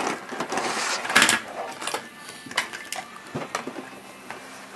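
Plastic Play-Doh toys and tubs being handled, clicking and knocking against a glass-topped table: scattered sharp clicks and knocks, with a louder burst of clatter about a second in.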